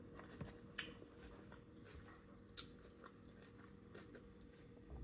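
Faint close-up chewing with the mouth closed, with a few soft crunches; the sharpest crunch comes about two and a half seconds in.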